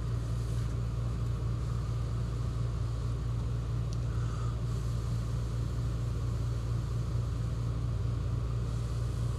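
Steady low machine hum, unchanged throughout.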